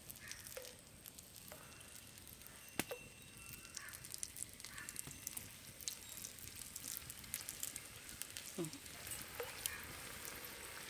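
Drops of rice and urad dal batter frying in hot oil in a kadai: a faint steady sizzle with fine crackles that grow denser in the second half. One sharp click about three seconds in.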